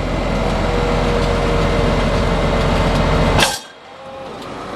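Hydraulic system of a 2005 Ford F650 rollback running under load off its PTO, a steady whine over the 5.9-litre Cummins diesel. It ends about three and a half seconds in with a sharp clank, after which only a much quieter engine sound remains.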